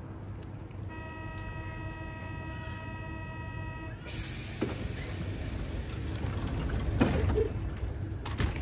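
Door-closing warning tone, a steady chord of several pitches held for about three seconds. Then a hiss starts and the commuter train's doors slide shut, with a knock about half a second later and louder thuds near the end.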